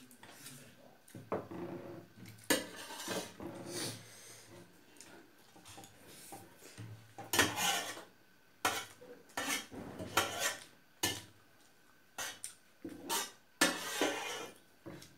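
Metal spoons scraping and clinking against steel plates in irregular bursts, with quieter gaps between.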